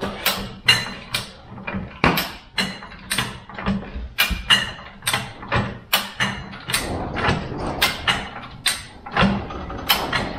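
Tire and steel wheel creaking and knocking as men step and bounce on the sidewall to push the bead off a beadlock wheel. Short, sharp sounds come about twice a second in a fairly even rhythm.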